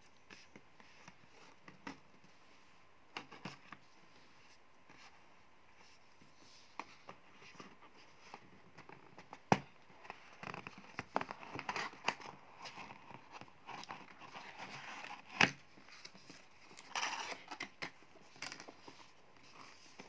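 Hands handling and opening a cardboard product box: scattered taps and scrapes of cardboard, with denser rustling and scraping as the flaps and lid are worked loose. There are two sharp knocks, about nine and a half and fifteen seconds in.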